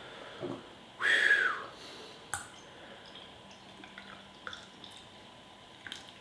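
Mouth sounds of a man eating and drinking: one louder slurp or breathy exhale about a second in, then small wet clicks and smacks scattered through the rest.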